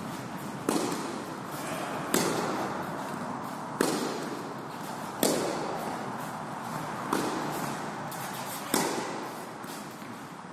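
Tennis balls struck with a racket during practice: six sharp hits about a second and a half apart, each echoing in a large covered hall.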